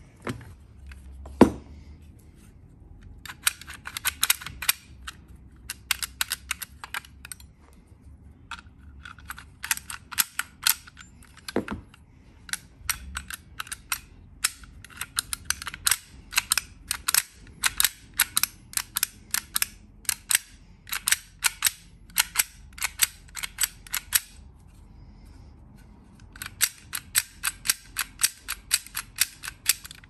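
Runs of sharp metal clicks, several a second, from hand work on a brass Baldwin mortise lock body, with a single knock about a second and a half in.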